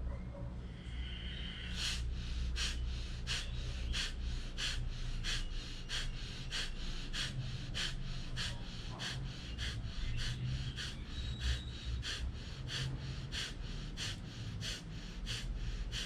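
Kapalbhati breathing: a rapid series of short, forceful exhalations pushed out through the nose, evenly paced at about three every two seconds, with quiet passive inhalations between. The strokes begin about two seconds in.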